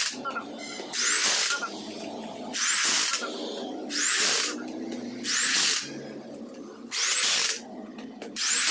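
A handheld power tool worked on the valve area of an aluminium cylinder head, running in short hissing bursts about every second and a half.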